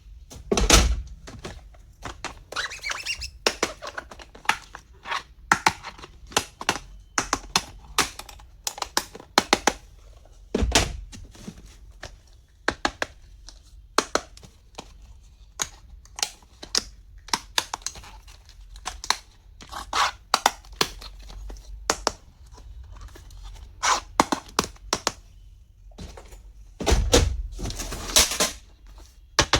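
Stationery supplies and their packaging being handled: a run of sharp taps and clicks, with short bouts of wrapping crinkling and tearing, the longest near the end.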